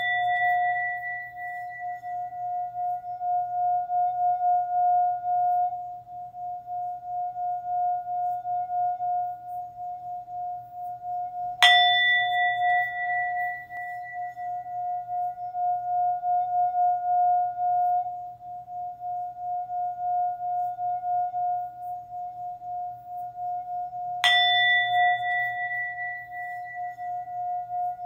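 Singing bowl struck about every twelve seconds, twice here, at about 12 s and near 24 s. Each strike rings on as a long, wavering tone whose higher overtones fade within a few seconds.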